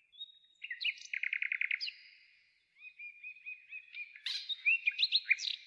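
Small songbird singing. First comes a quick trill of about eight high notes, then after a short pause a run of repeated rising whistled notes, with a few sharper, varied calls near the end.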